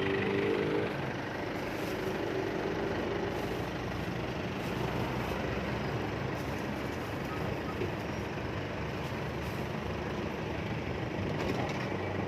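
Street traffic noise: vehicle engines running and passing in a steady wash. An engine hum fades out about a second in.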